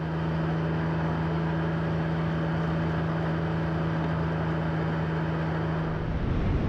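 BMW K75 three-cylinder engine running at a steady cruising speed, one unchanging engine note over wind and road noise. About six seconds in the engine note stops and a low wind rumble takes over.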